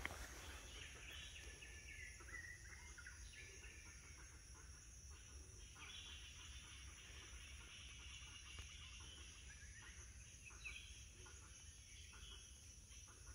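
Near silence: faint forest ambience, with distant birds calling now and then over a steady high insect drone.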